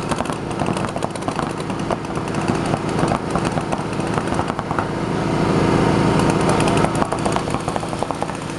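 Paintball markers firing, with rapid sharp pops several times a second, over a steady low hum that swells a little past the middle.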